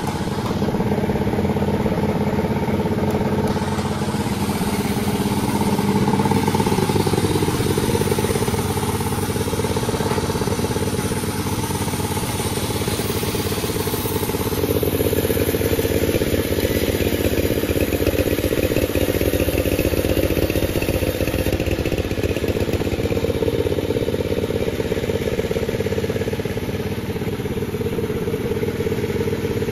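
Panda36 sawmill running, a loud steady machine drone whose tone shifts partway through.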